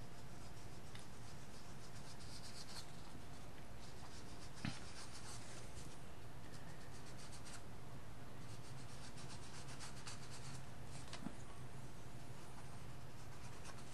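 Fingertips rubbing gold embellishment mousse onto embossed cardstock, heard as faint, soft scratchy rubbing over a steady low hum, with one small tap about four and a half seconds in.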